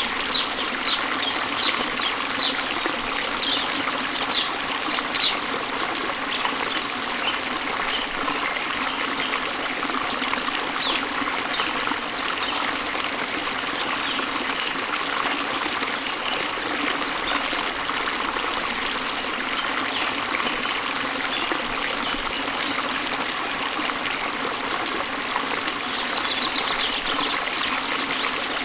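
Steady rush of waterfall water. A bird gives short high chirps, about two a second, for the first few seconds and again briefly near the end.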